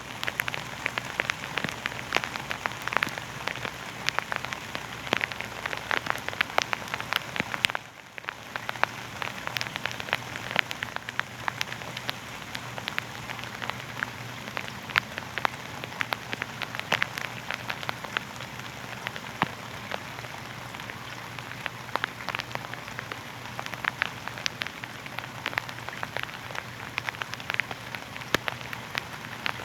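Steady rain falling on a surface as a sleep sound: an even hiss dotted with many sharp individual drop taps, dipping briefly about eight seconds in.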